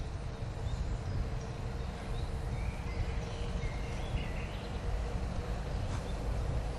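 Wind rumbling on the camera's microphone, with a few faint bird chirps around the middle.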